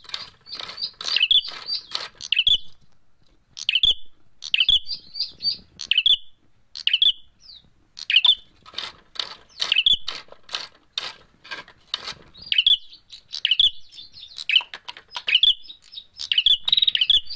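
Caged prenjak merah (ashy tailorbird) calling: bursts of short, sharp, high chirps repeated in quick runs with brief pauses, the agitated fighting calls used to lure other birds.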